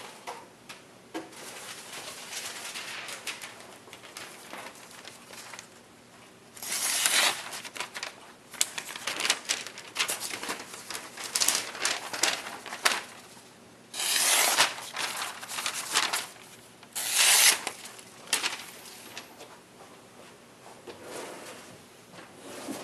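A gyuto kitchen knife's blade being worked by hand: irregular scraping and rustling strokes, with three louder hissing strokes of about a second each.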